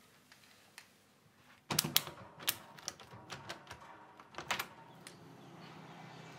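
A quick run of small clicks and knocks from a window's frame and handle being handled, starting about two seconds in and lasting about three seconds, with a faint steady low hum underneath.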